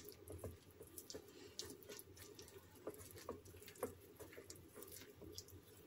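Faint, irregular squishing and soft clicks of a hand kneading wet flour dough in a stainless steel bowl.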